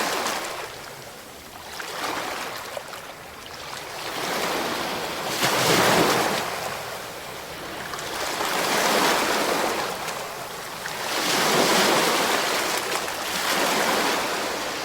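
Ocean waves breaking and washing in: a rushing noise that swells and fades about five times, every two to three seconds, loudest about halfway through.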